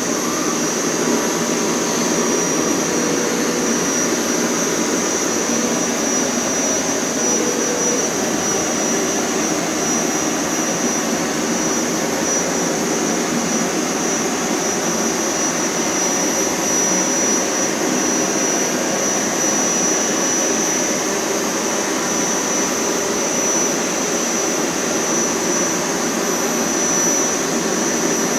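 Hoover Power Scrub Elite carpet cleaner running steadily in its wash setting, its motor noise carrying a constant high whine.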